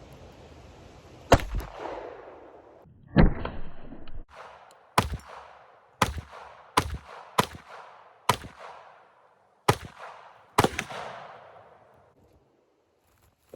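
Glock pistol firing a string of about nine shots at irregular gaps of roughly a second, each sharp report trailing off in an echo.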